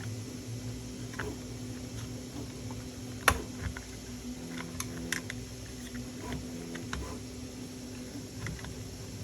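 Small clicks and taps of 3D-printed plastic parts and a small screw being handled and fitted, with one sharper click about three seconds in and a few more around five seconds, over a steady low hum.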